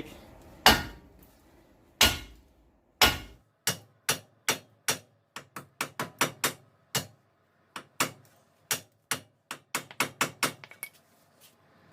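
Sledgehammer blows on a Dodge Ram 1500's steering knuckle to shock the outer tie rod end loose from it: about twenty sharp strikes, the first few about a second apart, then a steady run of two to three a second.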